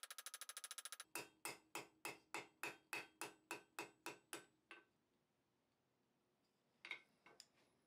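Ball-peen hammer striking a hot steel bar end on an anvil, forging a small ball detail: a quick patter of light blows in the first second, then about a dozen sharper, ringing blows at roughly three a second that stop about five seconds in. A few light metal clinks near the end.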